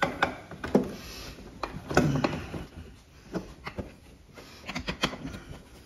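Wooden chair frame knocking and clicking as a new stretcher's tenons are worked into the mortises of the loosened chair legs: a string of irregular knocks, the heaviest about two seconds in, with a quick cluster of clicks near the end.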